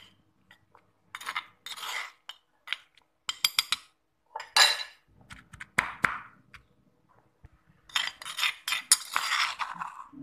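Metal spoon scraping and clinking against a stone mortar, with a stone pestle pounding wet spice paste, in irregular bursts of sharp clinks and short scrapes.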